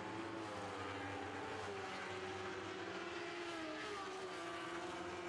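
Lightning sprint cars racing on a dirt oval: several small motorcycle engines running hard at once, their pitches rising and falling slightly as they lap the track.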